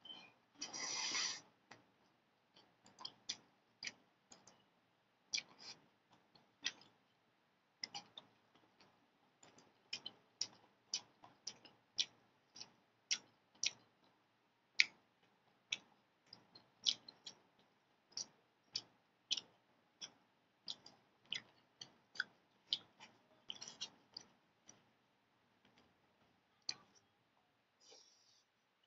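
A person slurping rice noodles once about a second in, then chewing with a run of wet mouth clicks and lip smacks, roughly one or two a second.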